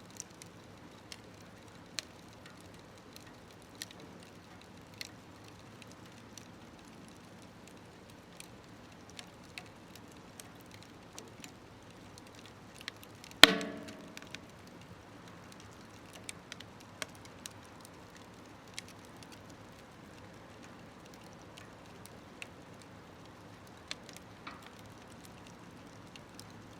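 Wood fire burning in a small smokeless wood stove, with scattered crackles and pops. About halfway through comes one loud sharp crack with a short ringing tail.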